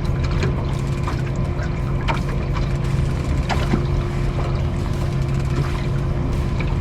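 A steady low hum with a constant thin tone above it, on a small boat in rain, with scattered light taps of raindrops throughout.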